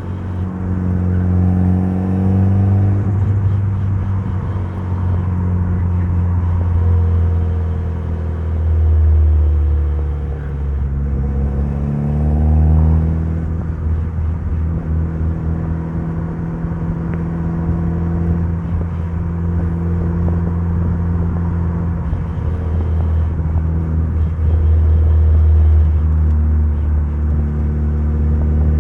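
Mitsubishi Lancer Evolution's turbocharged 4G63 inline-four running under way, its revs climbing and easing off, twice dropping back and pulling up again, with a heavy low drone throughout.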